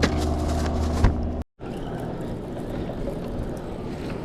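A steady low engine hum with a single click about a second in, cut off suddenly; then a steady rushing noise with no clear tone.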